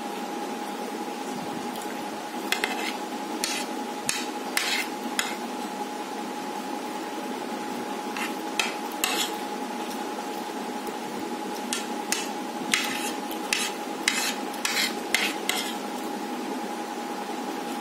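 Metal spoon scraping and clinking against a ceramic plate as food is scooped up, in two spells of short strokes. A steady high hum runs underneath.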